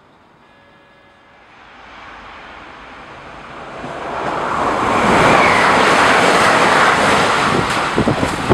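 SNCF TER AGC multiple-unit train going by at speed: its rolling rumble and rush of air build up over several seconds to a loud peak. Near the end comes a run of clacks as its wheels cross rail joints and points while it pulls away.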